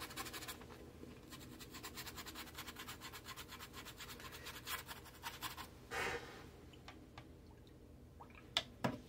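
Paintbrush scrubbing quickly back and forth on watercolour paper, a fast, even run of short scratchy strokes that stops about six seconds in, roughing up the edges of painted fur. Then a brief rush of noise and two light knocks near the end.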